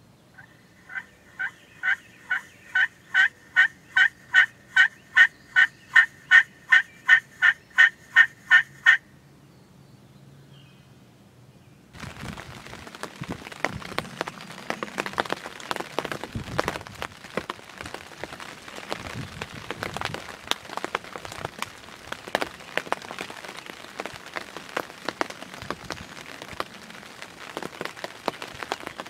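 A long series of about twenty evenly spaced wild turkey yelps, about two and a half a second, growing louder over some nine seconds. From about twelve seconds in, a dense, quieter crackling patter takes over.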